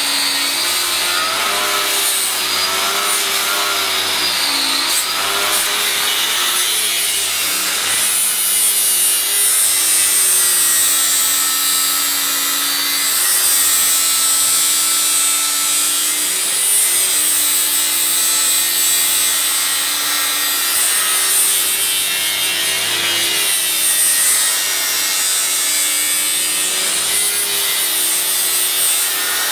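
Angle grinder dressing down welds on a narrowboat's steel handrail, throwing sparks. The motor whines without a break, its pitch dipping and recovering as the disc bites into the steel and eases off.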